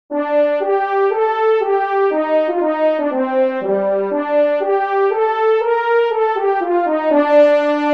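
Solo French horn, played back by music-notation software, opens a melody in F major right after silence: a string of quarter and eighth notes at a moderate level, rising to a loud accented note near the end.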